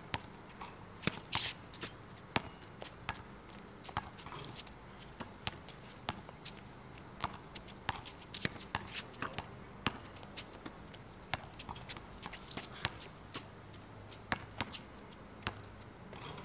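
A basketball bouncing on an outdoor asphalt court with sneaker footsteps, heard as irregular sharp knocks over a low steady hum.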